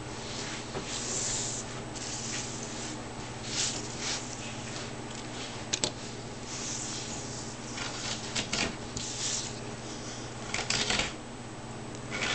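Hand carving knife paring shavings from a flat wooden board: a series of short scraping cuts with pauses between them, and two sharp clicks about six seconds in. A steady low hum runs underneath.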